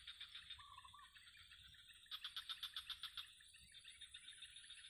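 Faint chorus of calling wildlife: a steady pulsing trill, with a louder run of rapid pulses, about eight a second, for just over a second midway, and a short two-note call about a second in.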